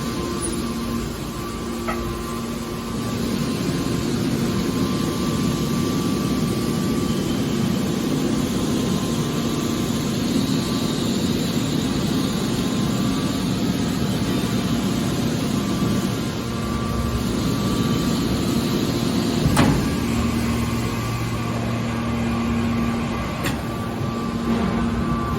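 Hydraulic scrap-metal baler running: a steady motor-and-pump hum, with one sharp metallic knock about twenty seconds in.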